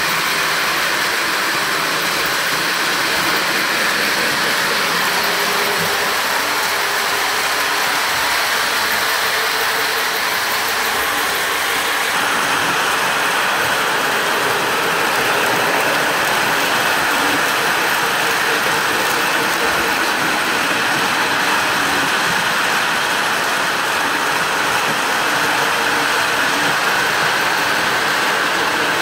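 Several Lionel O-gauge electric model trains running together on three-rail track: a steady rattle of metal wheels on the rails mixed with the whir of their motors.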